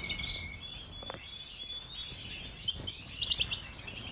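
A flock of small finches, European goldfinches among them, twittering and chirping in an aviary. Many short, high calls overlap, with a few louder chirps around two seconds in.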